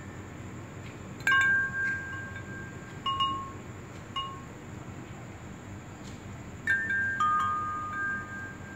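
Chime tones struck a few at a time, clear bell-like notes ringing and fading away: a cluster about a second in, single strikes around three and four seconds, and another cluster near seven seconds, over a faint steady hiss.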